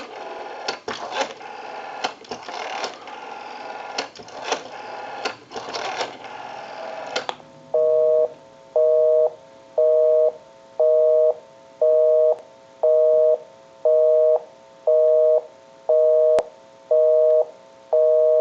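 Rotary dial of a Western Electric 554 telephone being dialed, with irregular clicks over line hiss for about seven seconds. Then a busy signal: a two-tone buzz switching on and off about once a second, because the number called is engaged.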